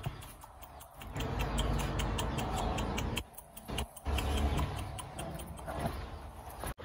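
Rapid, even ticking, about four ticks a second, over a low rumble that drops out briefly a little past the middle.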